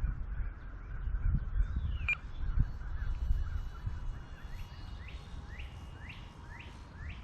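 Gusty wind buffeting the microphone with a low rumble, strongest in the first few seconds. In the second half a bird calls a run of about five short upward-sweeping chirps, roughly two a second.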